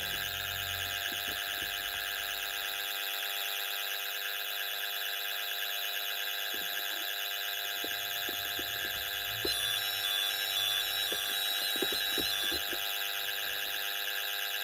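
Electronic intruder-alarm sounder on a 1990s Pyronix Paragon Super alarm system going off nonstop with a steady shrill electronic tone that has a fast ripple in it; the owner can't find what is causing it. About two-thirds of the way through, a few seconds of short, higher beeps join in over it.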